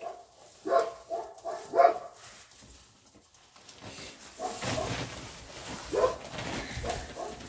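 Puppies yelping and whining in short, high cries, a few in the first two seconds and more later on, with rustling in straw from about halfway through.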